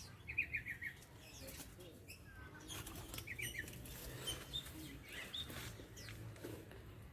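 Aviary birds flapping their wings, with two short rapid chirping trills from lovebirds, one near the start and one about three seconds in, among scattered chirps and clicks.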